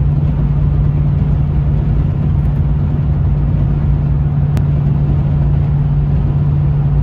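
Ram 1500 pickup cruising at highway speed, heard from inside the cab: steady road and tyre rumble under a constant low engine drone. A faint click about four and a half seconds in.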